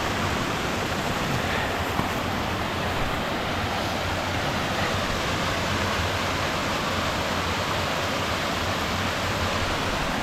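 Rushing water of a small triple cascade spilling over rock ledges, a steady even rush, with two faint clicks about two and three seconds in.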